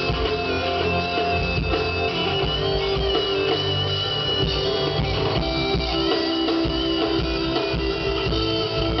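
A live band playing at a sound check, guitar to the fore over a steady bass line.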